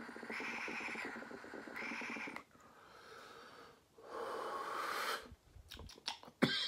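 Water bubbling through a Puffco Peak electronic dab rig's glass attachment as a long hit is drawn through the mouthpiece, with a fine rapid burble. After a short pause, a long breathy exhale comes about four seconds in.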